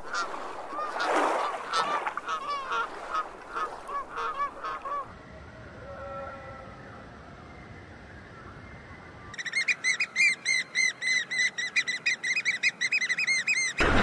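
Domestic geese honking repeatedly for about five seconds, then a quieter stretch with faint bird calls. From about nine seconds in, a small bird gives a fast, even run of high call notes, about five a second.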